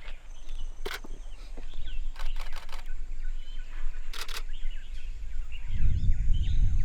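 Faint birdsong over the river, broken by a few sharp knocks, then near the end a loud low rumbling scrape as the dugout canoe's hull grinds onto the sandy riverbed.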